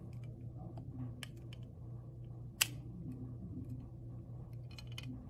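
Light clicks and taps from handling a pair of eyeglasses, their thin metal temple arms folding at the hinges and the frame knocking against the fingers. One sharper click comes about halfway through and a quick run of clicks near the end, over a steady low hum.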